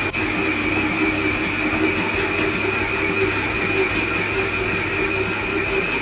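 Planetary stand mixer running steadily at speed 2, its dough hook kneading a soft, wet pizza dough; the motor gives a constant hum and whine that does not change.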